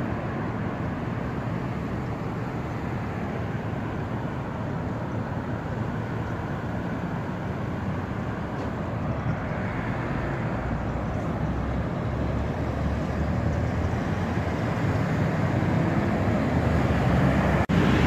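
Road traffic at a wide multi-lane intersection: a steady hum of car engines and tyres, growing gradually louder over the last several seconds.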